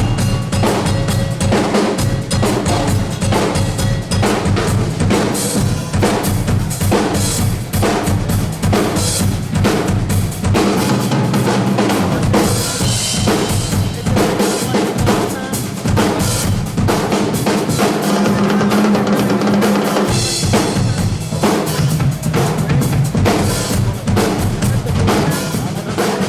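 Drum kit played at speed: dense kick, snare and tom strokes with cymbals, and a stretch of cymbal crashes about twelve seconds in.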